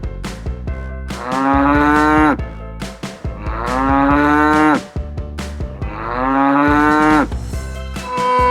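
Cow mooing three times, each a long call of about a second, over background music.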